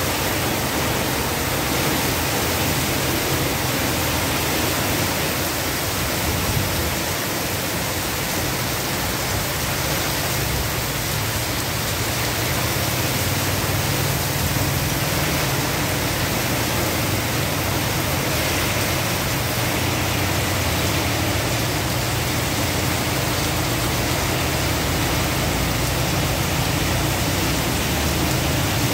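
Heavy rain pouring down onto a flooded paved street, a steady, even hiss. Motorbikes go by through the water now and then, mostly in the second half.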